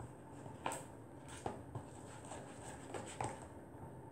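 A plastic utensil stirring glue and shaving foam in a plastic mixing bowl, with a few sharp clicks as it knocks and scrapes against the bowl's side.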